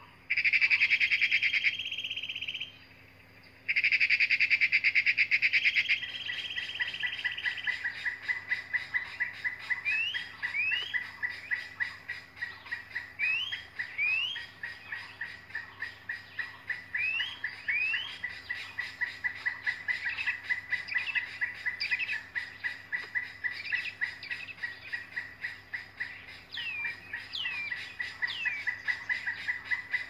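Woodpecker nestlings begging from a tree nest hole: a rapid, even series of short chirps, about three a second, with brief sweeping calls over them. This is preceded by two loud, steady high tones in the first six seconds.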